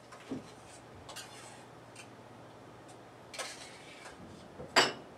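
A spoon scraping and clinking against a metal pot as peas are scooped out: a few light clicks and scrapes, then one sharp clink near the end.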